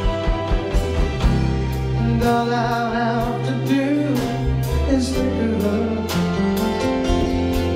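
Live band playing: a steady drum beat with bass and chords underneath, and a wavering melody line over it in the middle.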